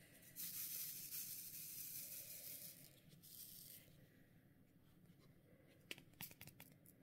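Resin diamond painting drills rattling and sliding in a plastic drill tray as it is shaken to line them up in its grooves: a soft hissing rattle for about three and a half seconds, then a few light clicks near the end.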